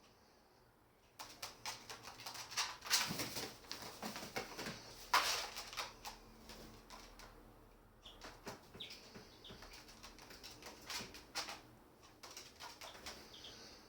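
Birds moving about in a room: a busy spell of rustling, flapping and sharp clicks starting about a second in, thinning to scattered clicks after about six seconds.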